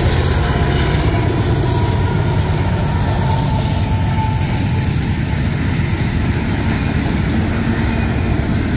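Union Pacific diesel locomotive 8940 leading an intermodal freight train past at about 30 mph, a loud, steady, deep rumble of engine and wheels on the rails.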